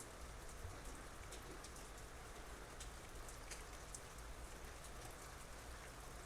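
Soft, steady rain, a light hiss with scattered individual drops ticking on nearby surfaces.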